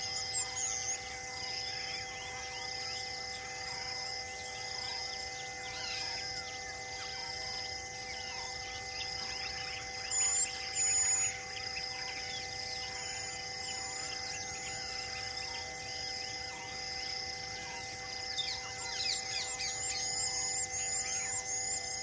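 Wildlife ambience: birds chirping and whistling over a high call that pulses evenly about twice a second and a faint steady hum. Two short, loud high calls come about halfway through, and a run of quick falling chirps grows louder near the end.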